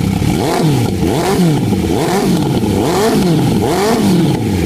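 Custom motorcycle's air-cooled Honda 750 engine being revved through a short open stub exhaust pipe, the throttle blipped about five times, roughly once a second, each rev rising and falling back.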